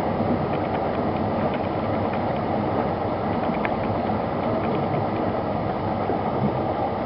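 Steady mechanical rattling with a dense run of small clicks, without a break.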